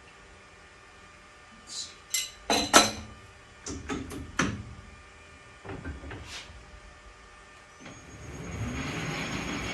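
Several sharp metal clinks and clanks of metal parts being handled. About eight seconds in, the metal lathe starts and its spindle spins up with the new chuck backplate mounted, then runs steadily with a thin high whine.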